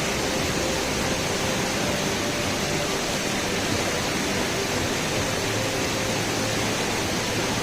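Steady rushing of falling water, an even noise that holds the same level throughout.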